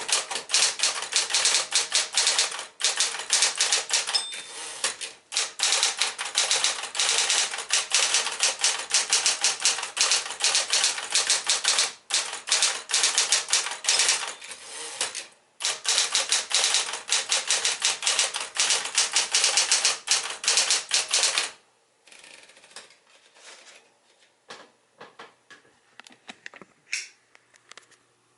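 Smith-Corona Electra 120 electric typewriter typing fast, keystrokes in quick runs broken by short pauses. The typing stops about 21 seconds in, leaving only faint scattered clicks.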